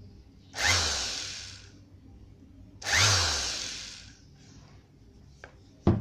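Bosch GSS 2300 orbital sander run in two short blips with no load on the pad, each time buzzing up sharply and then winding down over about a second. A single sharp knock just before the end.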